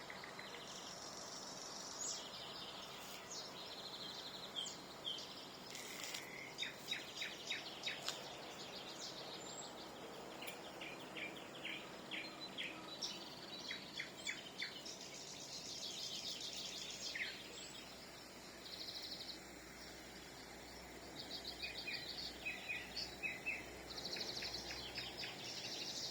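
Nightingales singing: varied phrases of rapidly repeated clicking and piping notes, trills and short whistles, with brief pauses between phrases.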